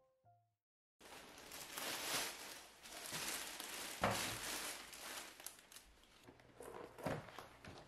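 Thin plastic carrier bags holding pizza boxes rustling and crinkling as they are handled and set down on a wooden table, starting about a second in, with one sharp knock about four seconds in.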